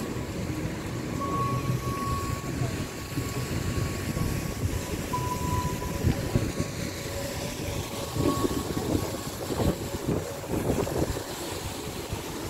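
Wind buffeting a handheld microphone over a steady low outdoor rumble.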